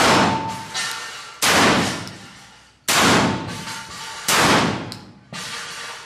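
Remington Versa Max Tactical 12-gauge semi-automatic shotgun firing four shots about a second and a half apart, each blast echoing off the indoor range and dying away over about a second. Two quieter sharp bangs fall between the shots.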